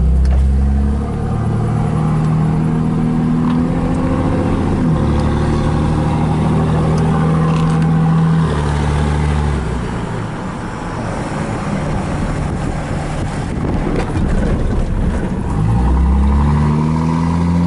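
An engine running steadily, its low pitch shifting in steps a few times.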